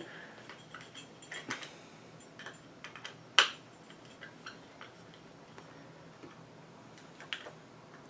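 Small flat-headed screwdriver tightening the screws on a satellite wall plate: faint scraping and scattered small clicks, with one sharper click about three and a half seconds in.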